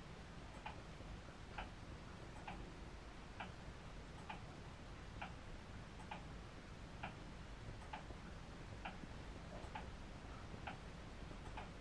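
Clock ticking steadily and faintly, about one tick a second, over a low steady room hum.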